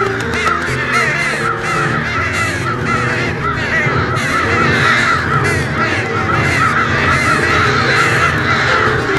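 A large flock of birds calling, with many short calls overlapping several times a second, over low held notes of music.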